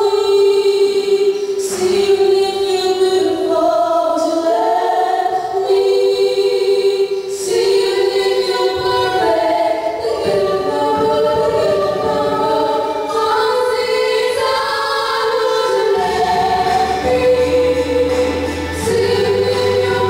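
Two female voices singing a slow song together in harmony through microphones, holding long notes. A low bass line sounds underneath in the last few seconds.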